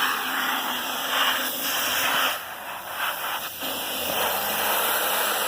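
Can of keyboard-cleaner duster spraying onto a padlock in a continuous hiss that eases off for about a second near the middle, then resumes.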